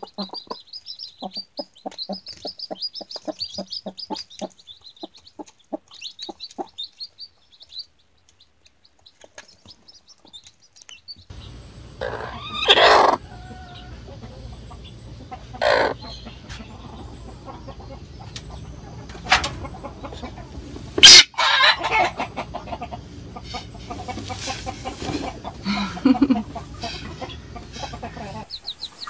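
A mother hen clucking in a quick, soft series while her chicks peep high and fast. From about eleven seconds in, a broody hen on a nest gives several loud squawks a few seconds apart as a hand reaches under her.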